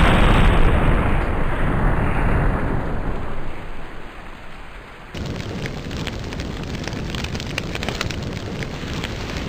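Explosion sound effect: a deep rumbling boom dies away over about four seconds. About five seconds in, an abrupt cut brings in steady dense crackling.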